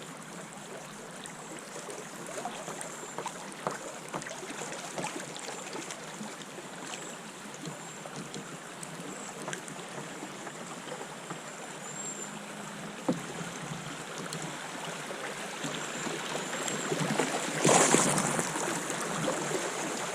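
River water moving and lapping around a kayak, with scattered small knocks and a louder burst of noise near the end.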